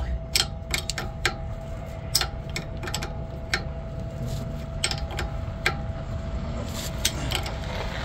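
Socket ratchet clicking in short irregular runs as a brass air fitting, wrapped in thread tape, is tightened into a trailer's air brake chamber. The clicks come thickest in the first few seconds and thin out later.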